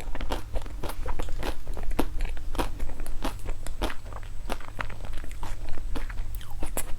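Close-up crunching and chewing of a crunchy snack with a sweet filling: many sharp, irregular crackling bites and chews.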